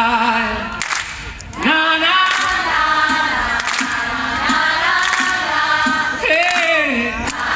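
A concert crowd and the singer singing a wordless 'na na na' chorus together over a live band with drums. The singing drops away briefly about a second in, then picks up again.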